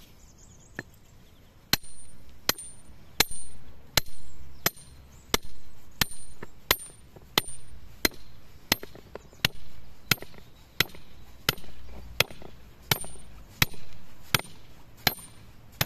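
Hammer driving a metal fixation pin into a plastic permeable paving grid. About twenty sharp, evenly paced metal-on-metal blows, roughly one every 0.7 seconds, start about two seconds in, each with a brief high ring.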